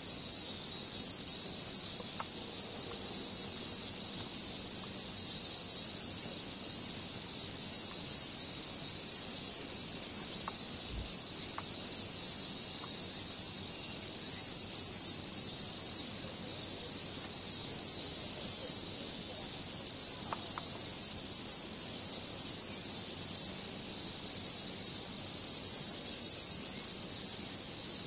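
Chorus of cicadas making a steady, high-pitched hiss with no break.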